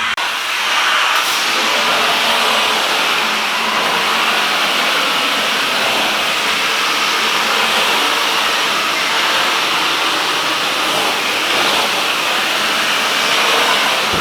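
Professional cleaning equipment running with a steady, even rushing hiss: the spray and vacuum of a steam-cleaning extraction tool at work.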